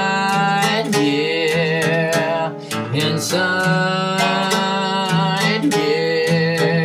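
Music: a song with guitar over a steady beat of cymbal or hi-hat strokes.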